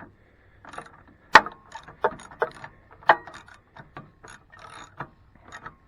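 Ratchet wrench clicking, with sharp metal clinks and knocks at an irregular pace, as a spark plug is worked loose on a snowblower engine. The loudest knock comes about a second and a half in.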